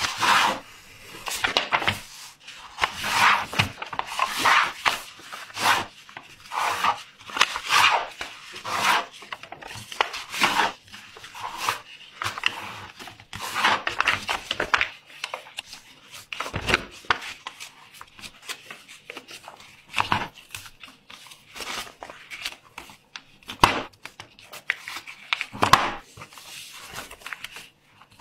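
A sheet of origami paper being folded by hand on a plastic cutting mat: irregular rustling and sliding, with short sharp strokes as the folds are creased flat.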